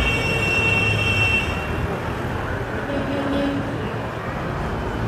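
Busy city street ambience: a steady low rumble of traffic with faint voices. A high, steady tone sounds for about a second and a half at the start.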